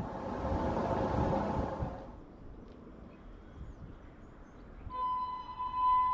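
A train's rumble recedes into the distance and breaks off about two seconds in. Near the end a distant train horn sounds, one steady high note that swells and is held.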